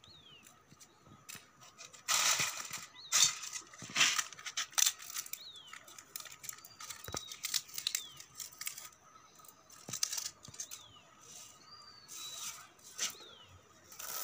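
Dry rajma (kidney bean) pods crackling and rustling as they are split open by hand, loudest and densest about two to five seconds in. Short falling bird chirps come several times in the background.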